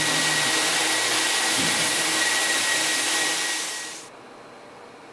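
Floor buffer screening a sanded hardwood floor, hooked up to a dust-containment vacuum. It runs with a loud, steady rushing hiss and a thin high whine, then dies away about four seconds in.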